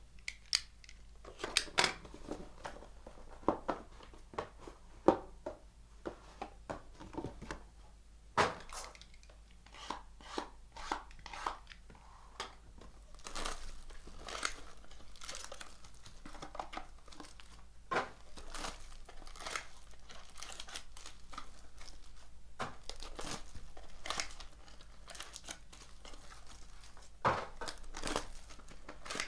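Trading card packaging being opened by hand: a sealed box and its packs torn open, with wrappers crinkling and tearing and many sharp clicks and taps as the packaging and cards are handled.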